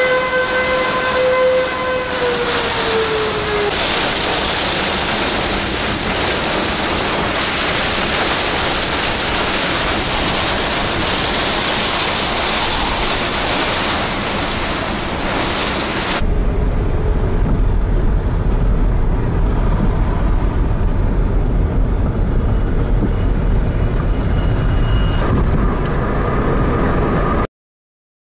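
An outdoor storm warning siren holding a steady tone, then winding down and falling in pitch over the first few seconds, under the steady hiss of heavy rain and wind. About sixteen seconds in, it cuts to a louder low rumble that stops suddenly near the end.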